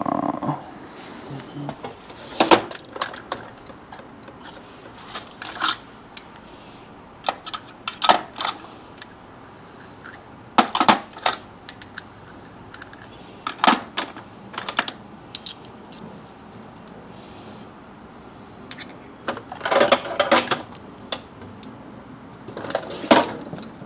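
Steel sockets and tools clinking as they are picked through and handled, in scattered clusters of sharp metallic clicks every few seconds.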